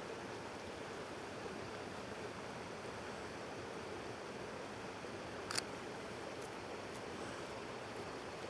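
Stream running, a steady rush of flowing water. One short click a little past halfway through.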